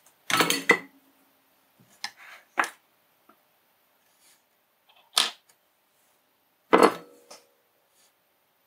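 Metal tweezers clicking and tapping on a desktop while picking up tiny surface-mount resistors: five or so separate sharp clicks scattered over several seconds.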